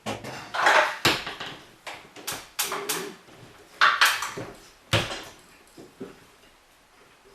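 Clanks, knocks and scrapes of a hand-bent metal strap bracket being worked into a tight fit on a garage door opener. There are a dozen or so irregular hits and short scrapes, the loudest in the first five seconds.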